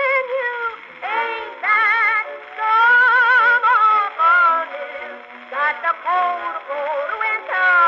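Background music: a blues song, its melody line wavering with strong vibrato over the accompaniment, with no words sung.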